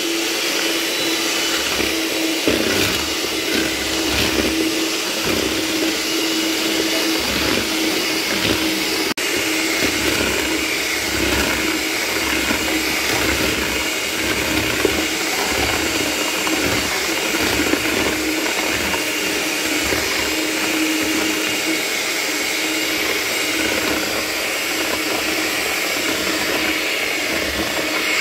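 Electric hand mixer running steadily at one speed, a constant motor hum with the beaters churning through eggs and sugar as they are whipped into a pale froth.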